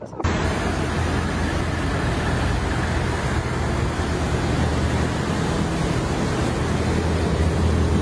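Steady traffic noise with a low engine hum, from cars driving along a road covered in floodwater.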